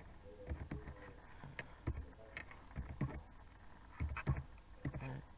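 Typing on a laptop keyboard: irregular key clicks, about two a second.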